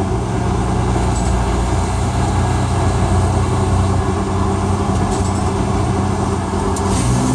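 A fire truck's engine running steadily while driving, heard from inside the cab over road noise; the engine note changes near the end.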